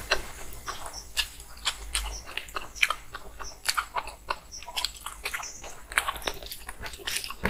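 Close-miked wet chewing and lip-smacking of a mouthful of rice and fish curry eaten by hand, many short sharp clicks in irregular succession. The squish of fingers mixing rice and curry on the plate joins in.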